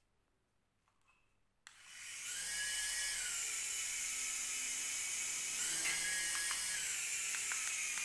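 Small toy RC helicopter's electric rotor motor spinning up about two seconds in and then whining steadily in flight, its pitch dipping and later rising again, with a few light ticks near the end.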